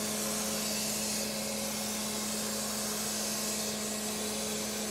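Crankshaft grinding machine running steadily: an even motor hum with a constant hiss from the spinning grinding wheel and flowing coolant.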